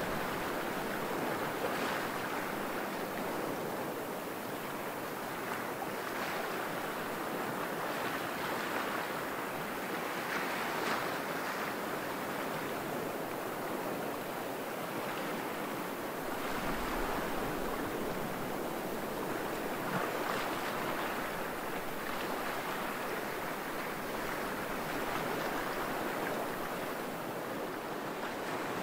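Small waves from a light chop on Lake Superior washing against the shore in a steady rush that rises and falls, with broken ice shards swishing along the shoreline.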